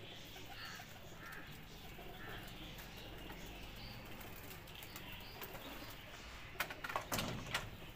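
Faint bird calls from pigeons at the loft, then a short flurry of sharp wing flaps and clatter about seven seconds in.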